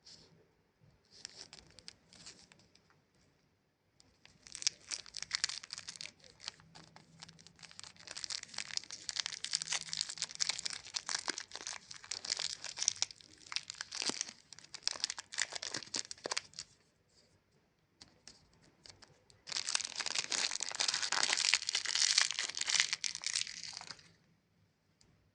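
A Chupa Chups lollipop's crinkly plastic wrapper being handled and torn open, a dense crackling that starts faintly and runs for about twelve seconds, pauses briefly, then comes back louder for a final stretch of several seconds.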